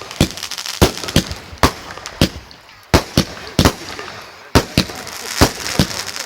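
Fireworks going off in a display: an irregular run of sharp bangs, about two a second, with crackling between them.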